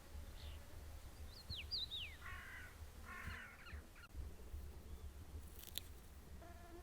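Birds calling: a couple of quick descending whistled notes, then two harsh, rasping calls about a second apart, over a steady low rumble, with a single sharp click near the end.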